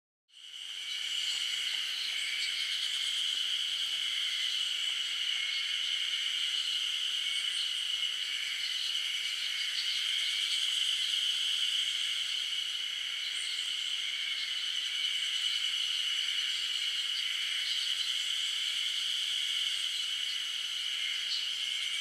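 Steady, high-pitched insect chorus that fades in at the start and then holds without a break.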